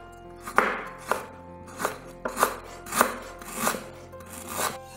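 Chef's knife slicing peeled ginger into thin slices on a bamboo cutting board: about eight crisp knife chops, roughly two a second, over soft background music.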